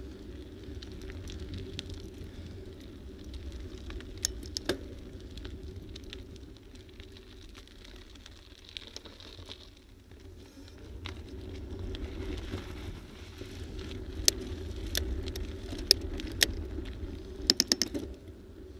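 Bicycle riding on a paved road: steady wind rumble on the microphone and tyre hum on the asphalt. Sharp rattles from bumps come twice about four seconds in, and several more come in the last five seconds, closing with a quick cluster.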